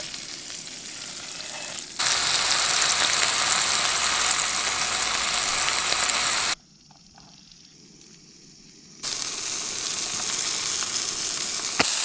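A moose burger patty sizzling in hot oil in a frying pan, a steady hiss that gets much louder about two seconds in, drops away briefly in the middle and comes back. A sharp click near the end.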